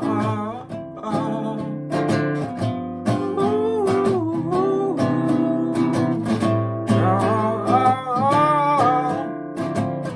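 Acoustic guitar being strummed, with a solo voice singing a wavering melody line over it.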